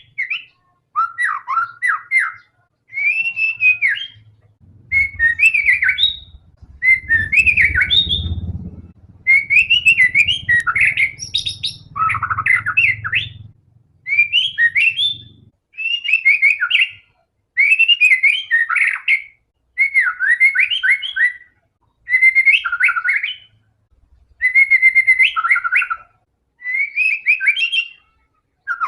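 White-rumped shama singing: a steady run of varied whistled phrases, each a second or two long, with short pauses between. A low rumble sits under the song from about five seconds in until about fifteen seconds in.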